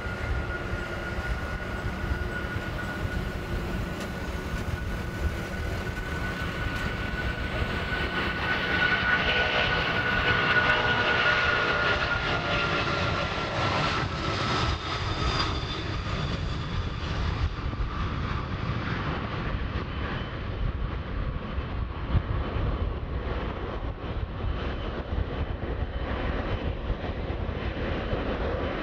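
Four-engined Boeing 747 freighter at takeoff power: a steady jet rumble with a high engine whine that swells as the jet rolls past, then drops slightly in pitch. The whine fades about halfway through while the low rumble carries on as it climbs away.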